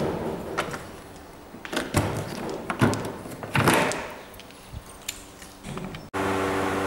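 Metal electrical control panel door being shut and locked with its key: a few sharp knocks and clicks, with keys jangling on their chain. Near the end a steady machine hum starts suddenly.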